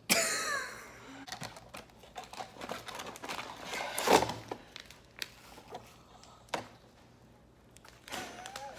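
A child opening a cardboard box and handling its plastic-wrapped contents: scattered clicks, knocks and packaging rustle, with a louder crackle of packaging about four seconds in. A young child's voice is heard briefly at the start.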